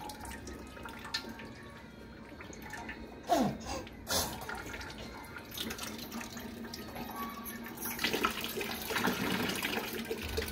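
Water running from the spout of a lever-operated hand pump as its handle is worked, the pouring growing louder about eight seconds in. A short falling squeal and a clank come a little past three seconds in.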